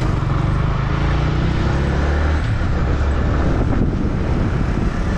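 Motorcycle engine running as the bike accelerates up to road speed, with wind noise on the microphone.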